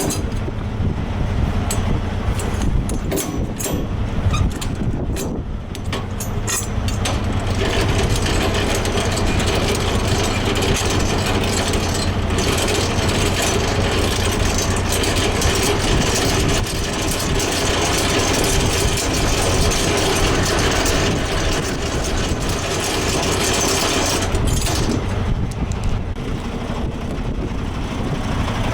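Semi-truck diesel engine running steadily, with a rushing noise that builds about seven seconds in. A few sharp clicks sound in the first several seconds.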